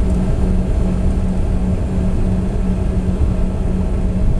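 Cabin noise inside a Bombardier CRJ regional jet with its rear-mounted turbofan engines running: a steady, loud drone with a low rumble and a steady hum.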